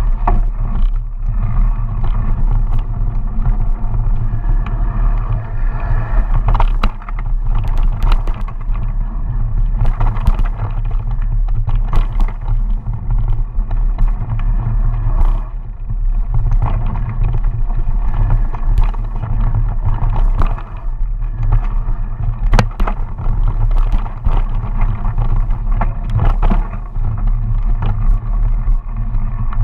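Mountain bike riding down a bumpy dirt trail, heard from a camera mounted on the rider: a steady low rumble of wind and tyre noise, with frequent irregular clacks and rattles as the bike jolts over the ground.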